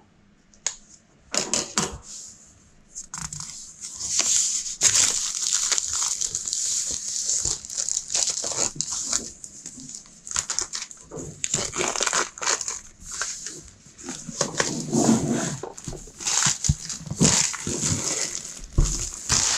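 Plastic shrink wrap crinkling and tearing as it is pulled off a board game box, in irregular crackles and sharp clicks that start about a second in.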